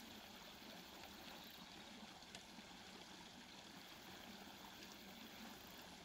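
Near silence: a faint, steady outdoor hiss, with one faint click about two seconds in.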